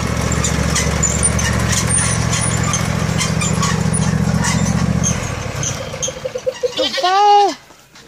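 Husqvarna riding lawn mower engine running steadily, then dying away about five seconds in as it is shut off. Near the end a Nigerian Dwarf goat bleats once, loudly, its pitch rising and falling.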